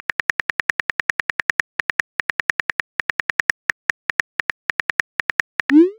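Chat-app keyboard typing clicks: quick, even ticks about eight a second, with short pauses between bursts. Near the end, a brief rising whoosh as the message is sent.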